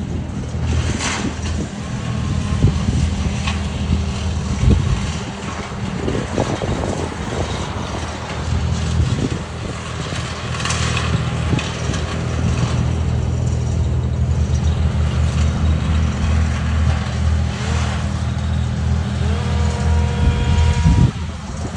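Car engine running steadily under road and wind noise. Near the end a pitched tone with several overtones sounds for a couple of seconds.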